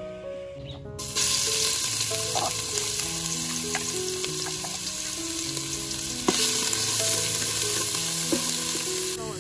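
Food frying and sizzling in hot oil in a pan. The sizzle starts about a second in, grows louder about six seconds in, and has a few sharp clicks of a utensil against the pan. Background music with a melody plays underneath.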